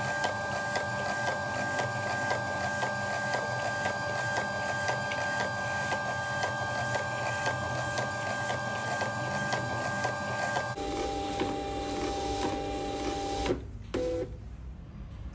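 Desktop thermal label printer printing and feeding an A6 shipping label, its motor running with a steady whine. The whine changes note about eleven seconds in, and the printer stops abruptly near the end.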